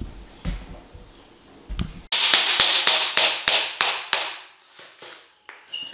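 Hand hammer striking metal in quick repeated blows, about three a second, with a high ringing note over the strikes, starting about two seconds in after a few faint knocks. It is the sound of an old floor being knocked up.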